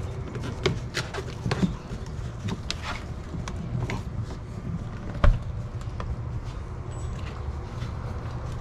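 Plastic clicks and taps from a corrugated vent hose being pushed onto a plastic fitting on an access hatch door, with one louder thump about five seconds in as the hatch is shut. A steady low hum runs underneath.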